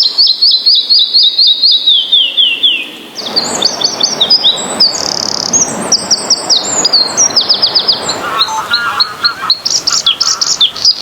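A songbird singing rapid series of short, high chirping notes. About three seconds in, the background hiss rises and the song becomes a busier jumble of high notes, with a few lower warbled notes near the end.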